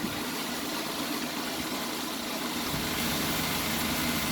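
Steady engine hum in the background, with no separate pulls or strikes.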